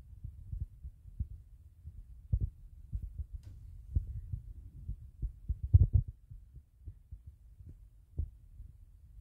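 Irregular low, muffled thumps of footsteps and a handheld phone being jostled while walking, with a faint rumble between them.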